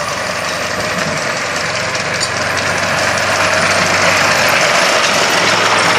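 Miniature live-steam traction engine running under way: steady steam hiss with a fast, even patter of exhaust beats, growing a little louder toward the end.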